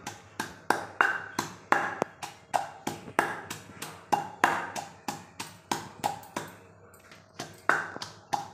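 Stone pestle pounding green chillies in a stone mortar: a steady run of knocks, about three a second.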